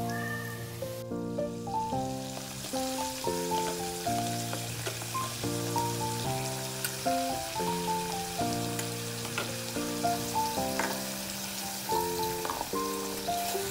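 Meat, fried onions and spice paste sizzling in a hot aluminium kadai, a steady frying hiss. Background music of short repeated notes plays over it.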